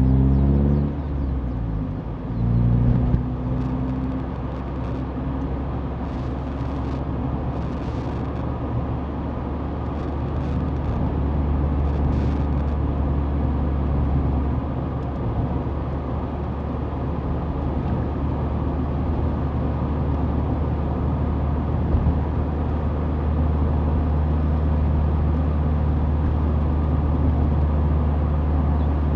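Mazda Roadster's four-cylinder engine and tyre noise while driving. The engine note shifts in pitch over the first few seconds, then settles into a steady drone at cruising speed.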